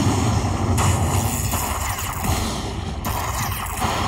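Aristocrat Lightning Link High Stakes slot machine playing its loud thunder-and-lightning win celebration, a continuous crackling rumble, as the bonus win counts up.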